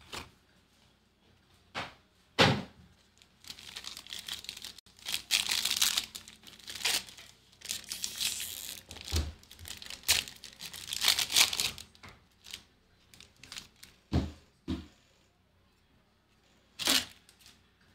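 Plastic wrapping being torn and crinkled as a sealed box of trading cards is opened, in irregular rustling stretches, with a few short knocks from handling the box.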